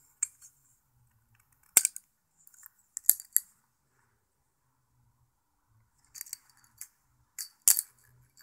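Balisong (butterfly knife), a modified BRS Alpha Beast with anodized handles and bronze latch and spacers, being handled and flipped: sharp metallic clacks as the handles swing and strike. The clacks come singly or in short clusters about two seconds in, about three seconds in, and as a flurry near the end, with quiet between.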